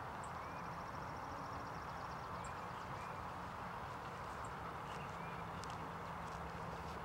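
Open-air ambience at a pond: a steady even rush of background noise with a faint steady hum, and small distant bird chirps every couple of seconds, with a quick high trill in the first two seconds.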